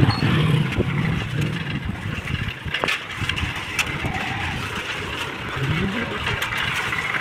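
Steady rushing noise of riding a bicycle along a rough lane, with a motorcycle engine running close by in the first second or so.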